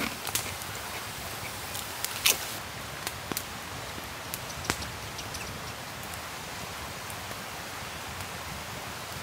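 A wood campfire crackling and a person crunching crisps: a few sharp crackles and crunches over a steady hiss, the loudest about two seconds in.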